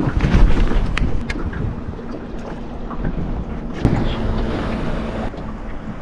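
Wind buffeting the microphone over water lapping against an aluminium boat hull. A few sharp clicks and knocks come about a second in and near four seconds.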